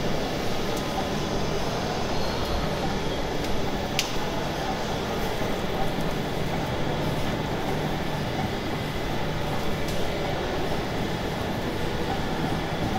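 Wide-width flexographic printing press running steadily, a dense, even mechanical noise of its rollers and drives, with one sharp click about four seconds in.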